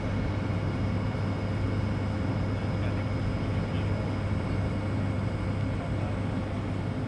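A machine running with a steady low hum, with a few faint steady higher tones above it.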